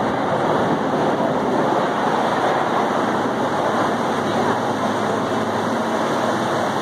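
Steady rushing of a creek flowing over rocks below a waterfall.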